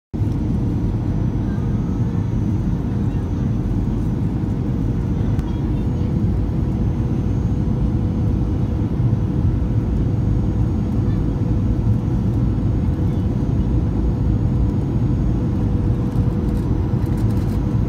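Airliner cabin noise: the engines and rushing air make a steady low drone with a faint, even whine.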